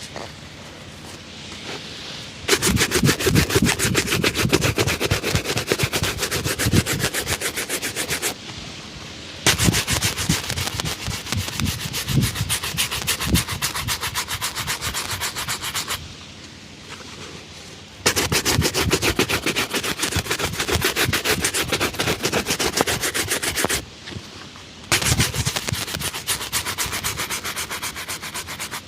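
A shoe being buffed with fast back-and-forth rubbing strokes, in four spells of several seconds with short pauses between.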